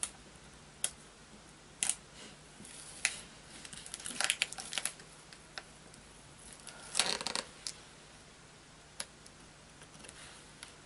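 Ceramic cutter blade scoring through low-tack Frisket masking film on a pastel mat, with the film crinkling as it is held and lifted: scattered short scratchy clicks and rustles, the loudest a cluster about seven seconds in.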